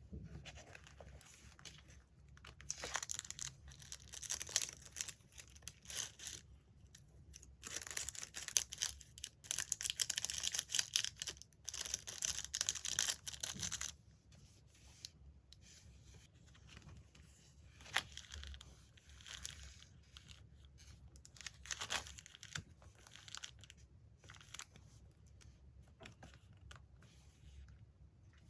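Paper being torn and rustled in two long stretches, the first from about three to six seconds in and the second from about eight to fourteen seconds in. After that come quieter handling rustles and a few light taps.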